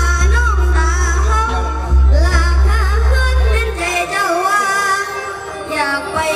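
A boy singing an Isan mor lam-style song with a live band backing, his melody wavering with ornamented vibrato. The deep bass drops out about four seconds in, leaving the voice and the higher instruments.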